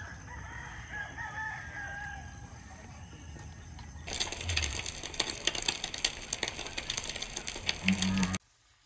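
A rooster crows once in the first seconds. About four seconds in, the sound switches suddenly to a louder hiss full of fine crackles, which stops abruptly near the end.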